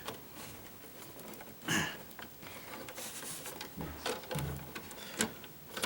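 Handling noise of stiff insulated electrical wires being pushed and folded into a wall junction box: scattered scraping and rustling, with a louder scrape about two seconds in and a few light knocks and clicks.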